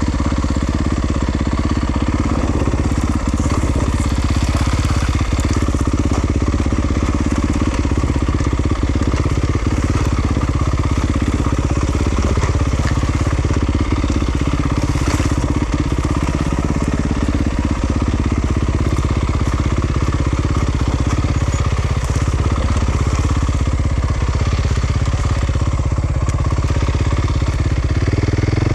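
Yamaha YZ250FX dirt bike's 250 cc four-stroke single-cylinder engine running at fairly steady, low revs, with a quick rev near the end.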